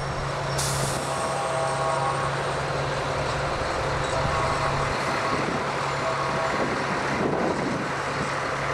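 A line of fire trucks driving past: a steady engine drone and road noise, with a short sharp hiss about half a second in and faint, distant horn tones now and then.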